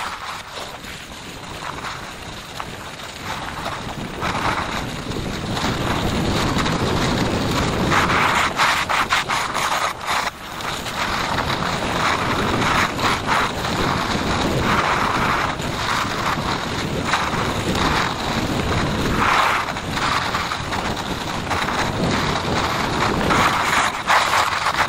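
Skis sliding and carving on hard-packed piste snow: a continuous scraping hiss that swells with each turn, every few seconds, quieter for the first few seconds. Wind buffets the microphone throughout.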